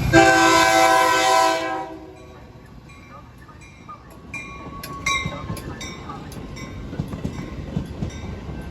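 Metra commuter train's locomotive air horn sounding one loud blast of about a second and a half, which cuts off sharply. The train then rolls by, its wheels clicking over the rail joints, with a few brief high squeals.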